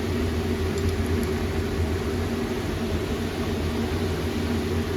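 Steady low mechanical hum from a running machine, such as a shop fan, with a few faint light metal clinks about a second in.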